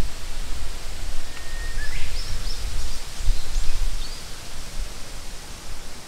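Outdoor ambience: a low, gusty rumble of wind on the microphone over a steady hiss, with a small bird singing a few short high chirps in the middle.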